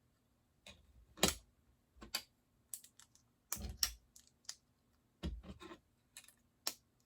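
Plastic Lego bricks clicking and tapping as they are handled and pressed together, about a dozen sharp clicks at irregular spacing.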